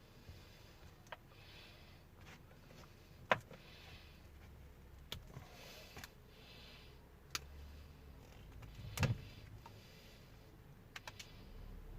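A few sharp clicks and knocks from small hand tools and wire being handled, the loudest about nine seconds in and a quick double click near the end, over soft breathing close to the microphone.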